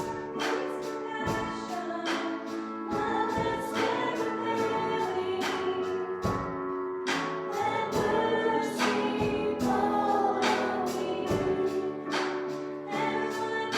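Church worship band playing a contemporary worship song, with voices singing together over sustained instrumental chords and a steady beat.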